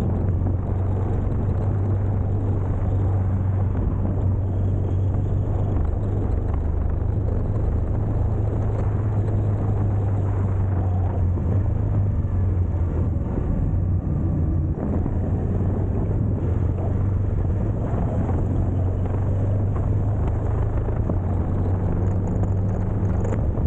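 Ducati Multistrada motorcycle engine running steadily under way, a constant low drone with wind and tyre noise on a wet road over it.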